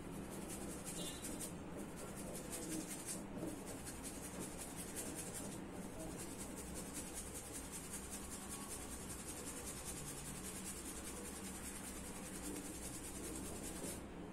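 Park Avenue shaving brush scrubbing Gillette shaving gel into a lather on a bearded face, a rapid, continuous scratchy brushing.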